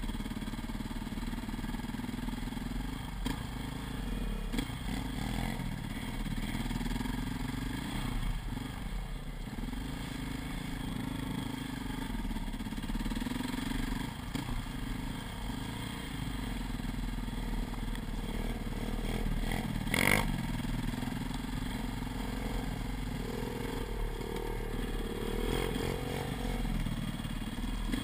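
KTM dirt bike's engine running at low speed with the throttle rising and easing, with a single sharp knock about two thirds of the way through.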